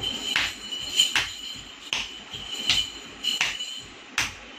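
Bare feet stamping on a tiled floor in Bharatanatyam footwork: a string of sharp slaps, about eight, some coming in quick pairs.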